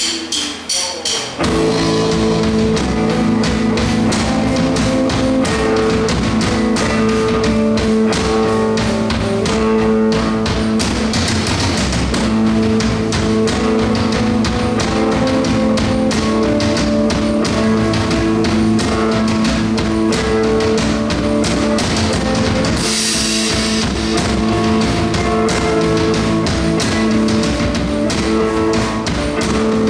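Rock band playing live through a sound check: drum kit, electric bass and electric guitar. A few separate drum hits open, the full band comes in about a second and a half in and plays on steadily, with a cymbal swell a little over twenty seconds in.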